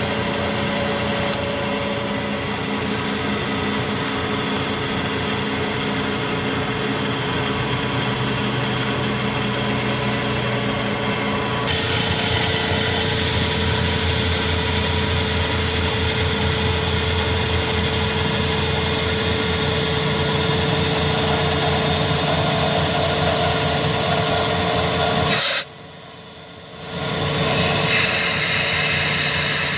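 Kearney & Trecker rotary head milling machine running, its end mill cutting a counterbore: a steady machine hum with a rubbing cutting noise over it. The sound shifts abruptly about twelve seconds in, and drops away for a second or so near the end before coming back.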